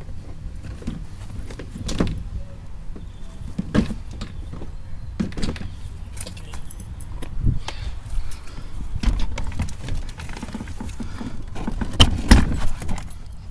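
Irregular clicks, knocks and rattles of hands and tools working loose the plastic interior door trim of a Honda Accord, with the loudest knocks near the end.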